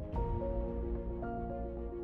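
Background music: a slow melody of held notes over a steady low bass, with a brief bright accent just after the start.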